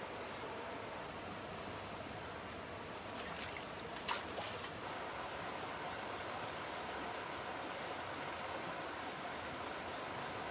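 Steady rush of flowing water, with a few short sharp clicks about four seconds in.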